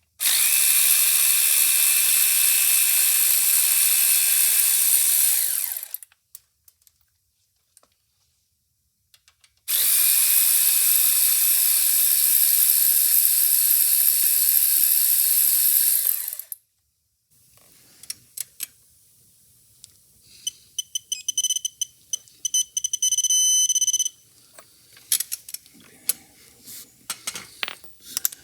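ACDelco cordless electric ratchet running under power in two long runs of about six and seven seconds, a steady high-pitched whir that stops cleanly each time. After a pause come scattered light clicks, with a stretch of rapid, even clicking.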